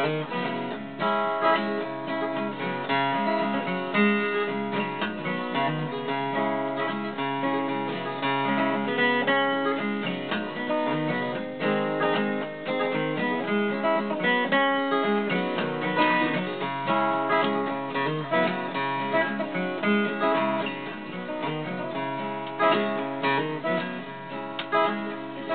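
Steel-string acoustic guitar played solo: an instrumental break of rapid picked notes mixed with strums, with no singing.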